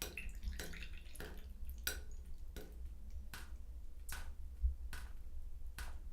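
Water dripping from a shower just after it has been turned off: single drips at an even pace, about one every three-quarters of a second, with a little trickling in the first second.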